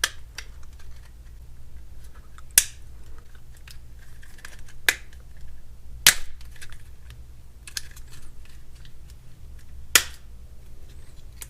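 Sharp plastic clicks and snaps as the smartphone's plastic case is pried and pulled apart, its clips letting go: four loud clicks spread over about ten seconds, with fainter ticks and scrapes between.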